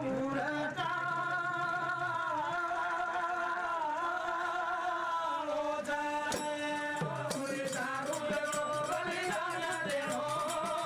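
Live Banjara devotional bhajan: a man singing long, wavering held notes into a microphone over regular hand-drum strokes from a dholak and a small frame drum.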